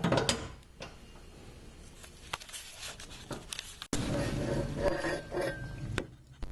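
A nut being spun off by hand under the van, with scattered light metallic clicks and some scraping and handling noise that grows louder about four seconds in.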